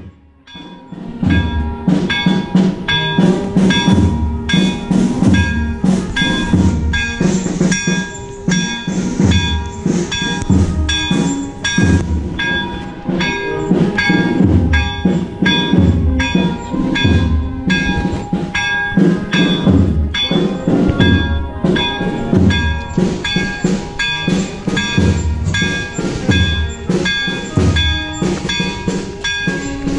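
Chapel bells rung fast in a steady rhythm, about two strikes a second, their ringing tones holding the same pitches throughout, with a deeper stroke about every second and a half underneath.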